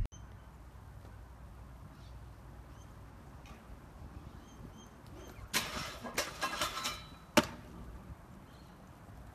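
Stunt scooter grinding along a metal flat rail, a loud scrape and rattle lasting about a second and a half, followed by a single sharp clack as it lands on the asphalt. Faint bird chirps are heard now and then before the grind.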